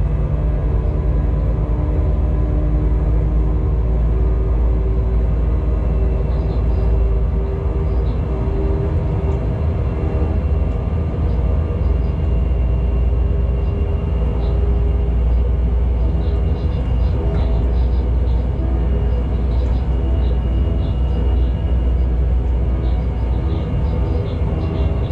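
A locomotive running light along the line, heard from the cab: a steady low rumble with a steady hum over it.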